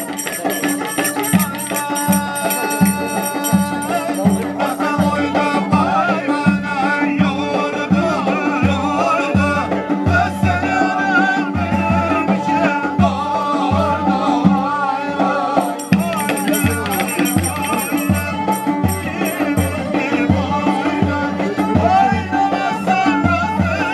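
Live Turkish folk dance music: a davul bass drum beating a steady rhythm under a wavering melody, with bright rattling percussion at the start and again about two-thirds of the way through.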